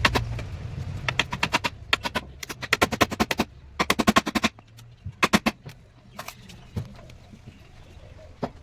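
Rapid runs of sharp tapping on wood, about eight to ten knocks a second, in several short bursts, thinning to a few scattered knocks after about five seconds.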